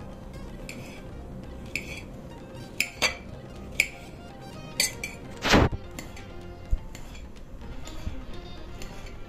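A small knife's blade clicking against a ceramic plate as a peeled banana is sliced into rounds: a series of sharp clicks, about one a second, with one louder knock about five and a half seconds in. Background music plays underneath.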